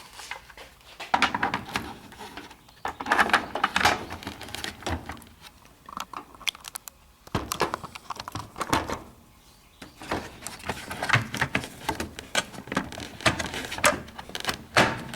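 Irregular clicks, taps and rattles of a replacement washing machine timer being handled and fitted into the plastic control console.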